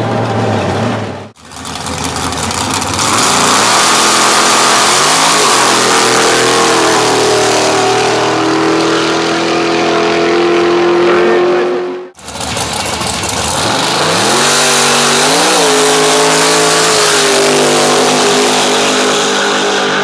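Drag racing cars' engines at full throttle, the pitch climbing as they accelerate hard down the strip and then holding high. The sound breaks off abruptly about a second in and again about twelve seconds in, and each time the engine note starts low and rises again.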